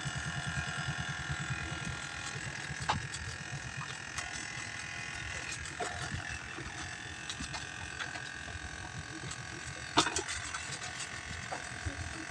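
A small engine running with a steady low throb that fades after about two seconds, with a few sharp knocks, the loudest near the end.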